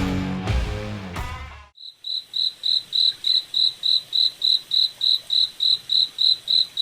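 Guitar rock music fades out over the first second and a half, then an insect chirps steadily with short, clear, high chirps, about three to four a second.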